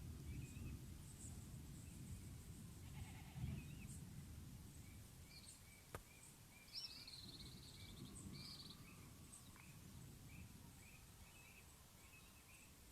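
Faint outdoor ambience: a steady low rumble under small bird chirps repeating every half second or so, with a few brief distant animal calls. There is a single sharp click about six seconds in.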